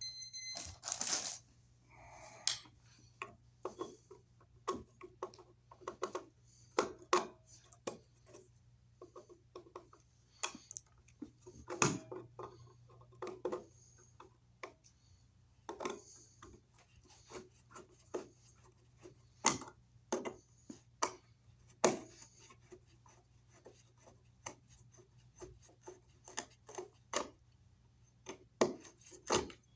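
Irregular clicks, taps and scrapes of hand work on an electrical handy box and its outlet, over a faint low hum.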